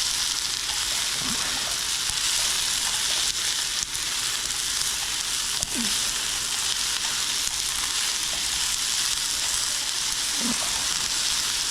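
Sofrito of onions, garlic and tomatoes frying in a pan, a steady high sizzling hiss.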